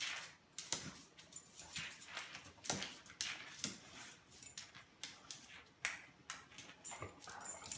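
A dog giving a rapid series of short, sharp yelping calls, about two or three a second.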